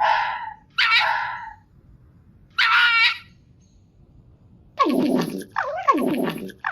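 A fox calling: three short hoarse calls in the first three seconds, then two longer, lower calls about five seconds in, the second falling in pitch.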